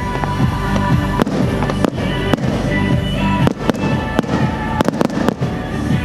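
Fireworks going off in irregular sharp bangs, several in quick succession near the end, with music playing underneath.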